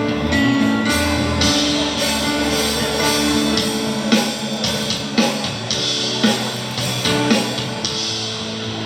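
Live band playing amplified music with guitar strumming over bass and drums, with sharp hits about once a second in the second half.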